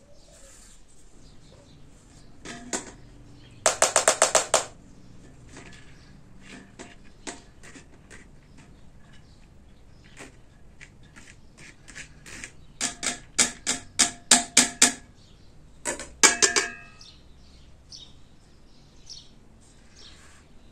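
Runs of quick, sharp taps and clinks against a steel cooking pot as rice is handled, in three short bursts; the last ends with a brief metallic ring.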